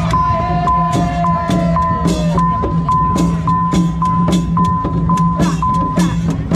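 Loud music with a fast, steady drum beat of about three strokes a second, over a low steady drone and a repeated high held note.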